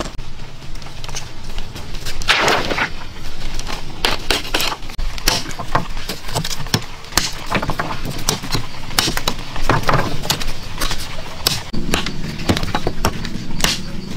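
Machete chopping wooden sticks against a log: a run of sharp, irregular chops, roughly one or two a second, with a longer clattering impact about two seconds in.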